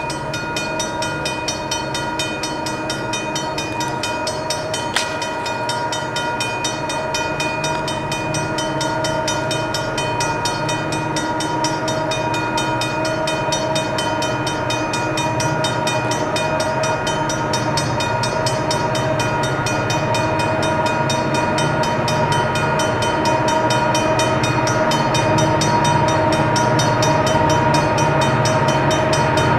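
Railroad grade-crossing warning bell ringing rapidly and steadily, over a low rumble that slowly grows louder as a Bessemer and Lake Erie diesel train approaches the crossing.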